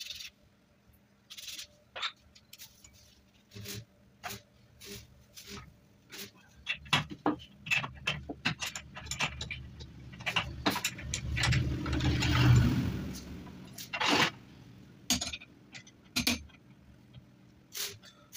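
Metal lathe parts and tools being handled and set down: scattered clinks and knocks, with a louder rumbling swell a little past the middle.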